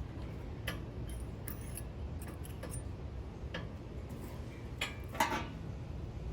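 Light metallic clicks and clinks, scattered and irregular, from brake pads and their hardware being handled and fitted into a caliper bracket, over a low steady hum.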